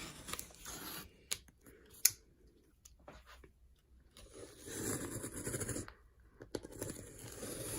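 Parcel packaging being handled and pulled open, with rustling, crinkling and tearing, and a sharp tap about two seconds in.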